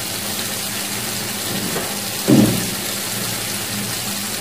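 Thick, creamy chicken gravy sizzling and bubbling in a pan over a gas flame, a steady crackly hiss over a low hum. About two seconds in there is one soft thump, the loudest moment.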